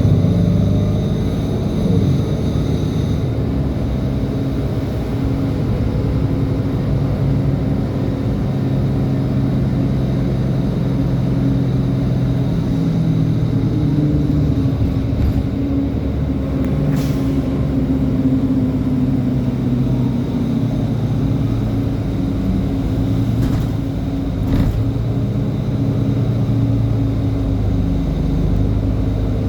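A city transit bus's engine running steadily, its note shifting up and down a few times as it speeds up and slows.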